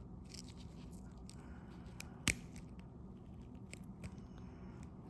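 Small clicks of a key and ignition lock cylinder being worked in the switch housing while the retaining pin is held in, with one sharp click a little over two seconds in.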